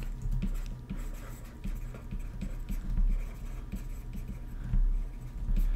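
Stylus writing on a tablet screen: a run of light, irregular taps and short scratches as words are handwritten, over a low steady hum.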